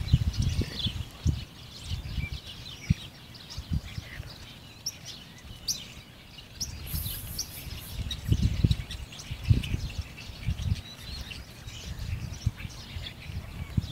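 Many short, high bird chirps and peeps, with intermittent low rumbles underneath.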